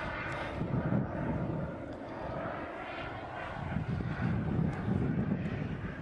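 Turbine engine of a radio-controlled F-14 Tomcat model jet in flight: a steady jet rush that dips a little in the middle and swells again about four seconds in.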